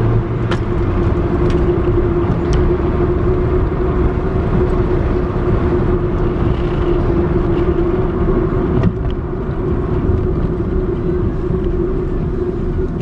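A car being driven, heard from inside the cabin: steady road and engine noise with a constant low hum. A few light clicks come through in the first few seconds.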